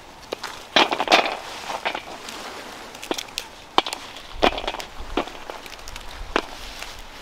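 Fresh green peanut pods being plucked by hand from uprooted peanut plants: crackling rustle of stems and leaves, with scattered sharp ticks as pods snap off and drop onto steel plates.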